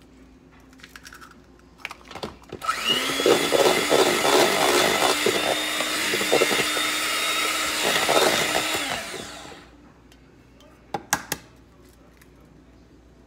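Electric hand mixer beating a freshly cracked egg into pound cake batter: the motor spins up about two and a half seconds in, runs for about seven seconds with the beaters churning the thick batter, then winds down. Two sharp clicks follow shortly after.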